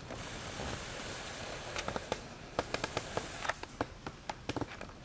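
A run of irregular sharp clicks and light knocks over a steady hiss, from handling a camcorder tripod. The clicks begin about two seconds in and come a dozen or so times before stopping near the end.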